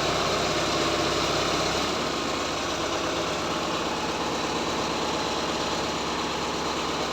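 Horizontal directional drilling machine's engine running steadily, easing slightly lower about two seconds in.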